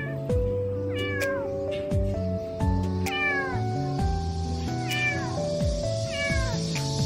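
Orange tabby kitten meowing four times, high calls that fall in pitch, over background music with a steady beat.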